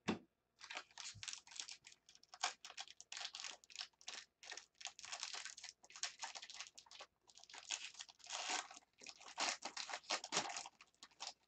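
Foil wrapper of a 2015 Bowman Draft jumbo baseball-card pack crinkling and tearing as it is pulled open by hand, in quick irregular rustles with short pauses.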